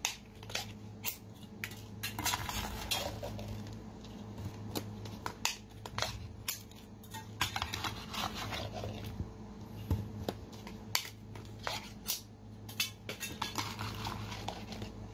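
Sauce-coated crayfish tails being shaken out of a glass jar onto a serving tray: repeated clinks and knocks of the jar against the dish, with wet slithering as clumps of tails and sauce slide out, three times longer.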